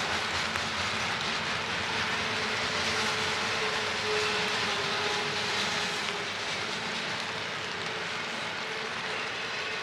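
Train rolling past, a steady rushing rail noise with a faint steady tone in the middle.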